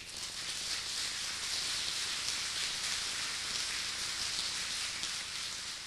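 Audience applauding: many hands clapping in a dense, even patter that builds over the first second, holds steady, and begins to fade near the end.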